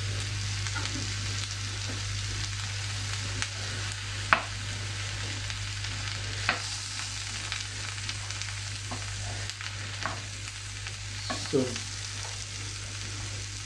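Diced zucchini frying in a nonstick pan with a steady sizzle, stirred with a spatula that gives a few sharp knocks against the pan.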